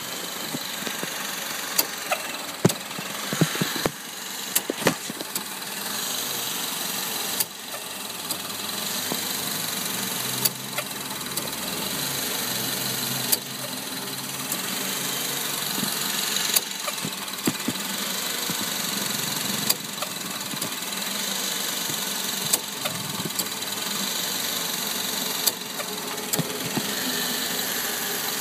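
Honda Step WGN (RK series) making an abnormal "koo" noise over its steady running noise, with scattered sharp clicks and knocks, most of them in the first few seconds.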